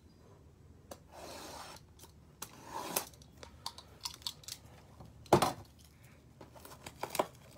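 Utility knife slicing through the cellophane shrink-wrap on a sealed trading-card box, followed by the plastic wrap being torn and pulled away: a short scraping cut, then scattered crinkles and clicks with one louder crack about five seconds in.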